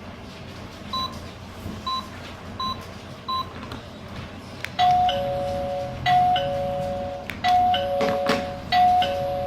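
Four short electronic beeps, then a KERUI M7 wireless doorbell chiming a two-note ding-dong, high note then lower note, four times in a row.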